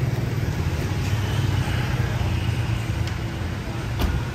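City street traffic: motorbike and van engines running as they pass, a steady low rumble, with a single sharp click about four seconds in.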